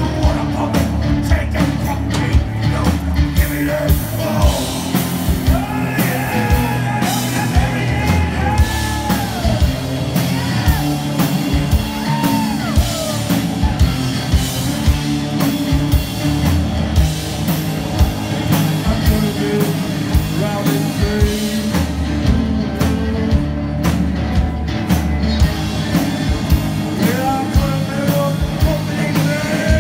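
Live rock band playing: a drum kit keeping a steady beat under electric guitar, with a singer's sliding, shouted vocal line over the top.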